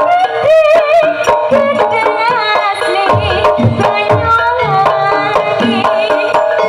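Live Javanese gamelan music with a kendang hand drum playing frequent sharp strokes and low thumps under a wavering, ornamented melody line.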